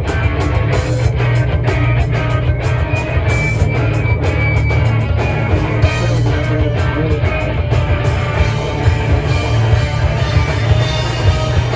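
A loud live rock band playing: distorted electric guitars, bass and a drum kit with frequent cymbal hits, heard in a small, crowded room.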